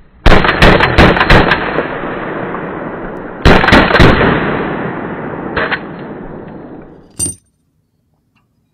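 Palmetto State Armory ARV 9mm pistol-caliber carbine, a direct-blowback gun, fired rapidly. There is a string of about six shots roughly a fifth of a second apart, each echoing as it dies away. About three seconds later comes another string of about four, then a single weaker shot. The sound cuts off abruptly about seven seconds in.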